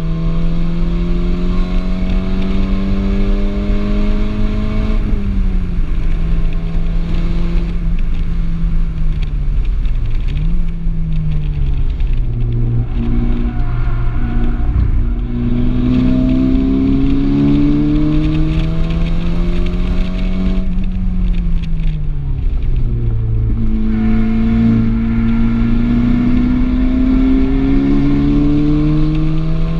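Volkswagen Golf R's turbocharged four-cylinder engine heard from inside the cabin while it is driven hard on a race track. The engine note climbs under acceleration, drops as the car lifts off and slows for corners, gives a short rev blip about ten seconds in, and climbs again. It falls once more a little past the twenty-second mark before pulling up to the end.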